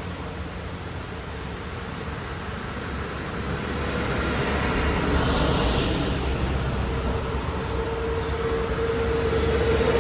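Steady rush of river water, with a low rumble and a steady hum growing louder in the second half.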